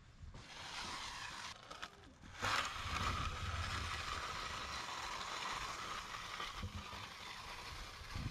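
Long-handled steel float sliding over freshly poured wet concrete: a steady scraping swish, with a knock about two and a half seconds in, after which the scrape gets louder.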